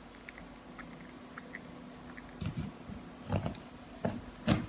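Kitchen knife cutting through an orange on a glass tabletop, with a few soft taps and knocks from about halfway in to near the end.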